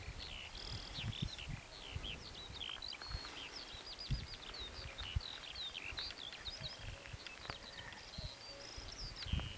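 Several songbirds singing at once, a dense run of quick chirps and short whistled, up-and-down notes overlapping throughout, over scattered low bumps of rumble.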